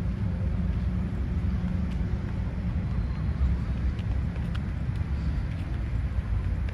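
Outdoor ambience: a low, steady rumble with a few faint ticks.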